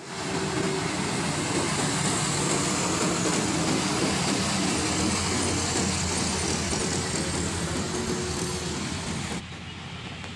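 Diesel trucks passing close by on a road, their engines running with a steady drone. A little over nine seconds in, the sound cuts abruptly to quieter traffic further off.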